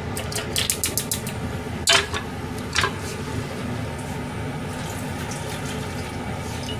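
Kitchen clatter of a saucepan and dishes: a quick run of light clinks in the first second, then two louder knocks about two and three seconds in, over a steady background hiss.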